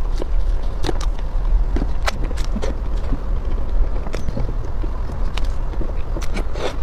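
Close-miked eating of soft mousse cake: wet mouth and chewing smacks and a wooden-handled spoon scooping and scraping through the cake, as irregular short clicks over a steady low rumble.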